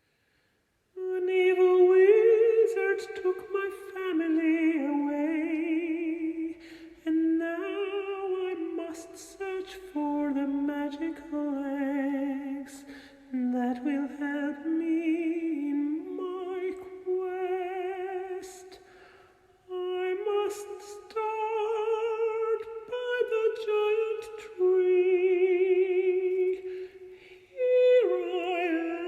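A woman's voice singing a slow melody with vibrato, in phrases of held notes with short breaths between them. It starts about a second in.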